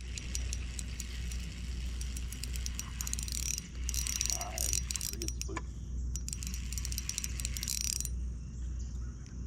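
Fishing reel being cranked in spells of a second or two, its gears whirring and clicking as line is wound in.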